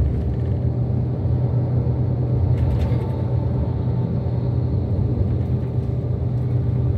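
Steady low rumble of engine and road noise heard from inside a vehicle moving at highway speed.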